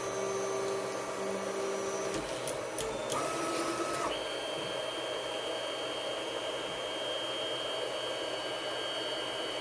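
Proforge 3D printer's stepper motors homing the axes on a G28 command. A steady motor whine runs for about two seconds, then a few light clicks, then a short higher-pitched whine about three seconds in. After that a thin, high steady tone holds over a faint background hiss.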